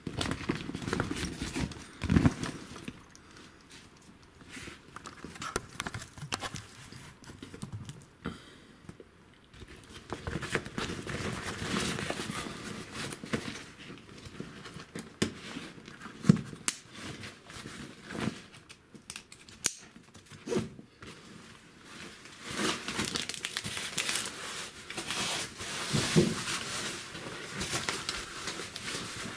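Close handling noise: clothing and gear rustling and scraping against the body-worn camera as it and the lamps are handled, with several sharp knocks, the loudest about two seconds in.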